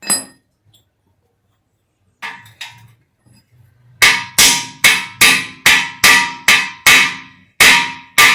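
Hammer blows on a metal driver, each blow ringing metallic. There is one blow at the start and two lighter taps a little after two seconds, then a quick run of about ten hard blows from four seconds on, roughly two and a half a second. The blows are seating a part in the Yamaha FZ25 swingarm pivot up against its end stop.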